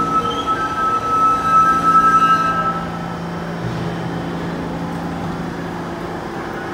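New York City subway train squealing with high, steady tones as it slows to a stop at the platform; the squeal ends about two and a half seconds in. The stopped train then gives a steady lower hum.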